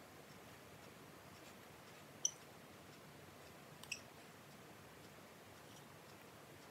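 Two light sharp clicks about a second and a half apart, the first louder, of a small wooden spoon tapping against a ceramic ramekin while chili powder is scooped out, over near silence.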